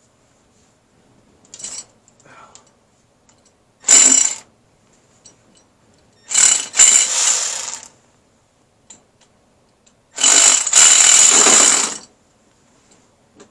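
Milwaukee 3/8-inch ratchet, working through a TITE REACH offset extension, runs a timing-belt-cover bolt out in three bursts: a short one about four seconds in, then two longer ones of about one and a half and two seconds.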